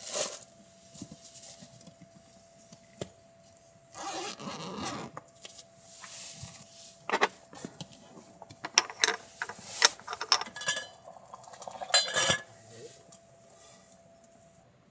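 Camp cookware and utensils being handled: a scatter of light metal clinks and knocks, thickest in the second half, while a drink is being prepared.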